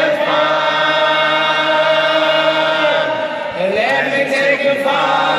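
Voices singing long held notes in a concert sing-along, each note about three seconds long and ending in a falling slide, with no band playing under them.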